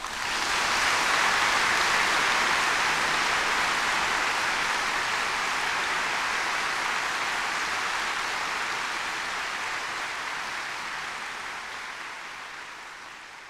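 Audience applauding: a dense, even clapping that starts suddenly and slowly fades away near the end.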